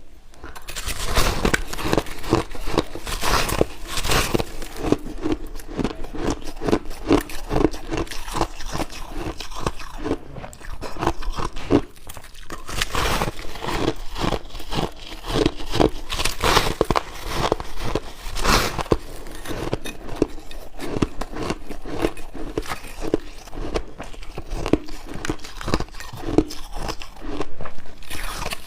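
Someone biting into and chewing chunks of shaved ice: a continuous run of crunches and cracks, with louder bites coming every few seconds.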